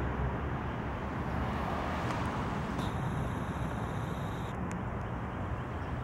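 Steady outdoor background noise: a low rumble with a hiss over it, even throughout, with no clear bird calls.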